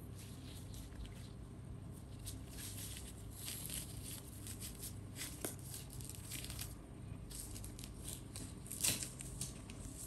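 Faint rustling and crinkling of a disposable diaper being handled and fastened, a string of short scratchy sounds with one louder near the end.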